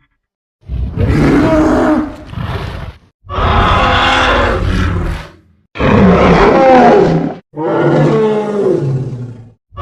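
Triceratops roar sound effect played five times in a row, loud calls of one to two seconds each with short gaps between them; the second is brief.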